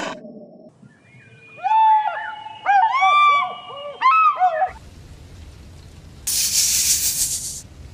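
Bateleur eagle calling: a quick run of short, high, arching notes, several overlapping, which stops abruptly. About six seconds in, a horned viper gives a single hiss lasting just over a second.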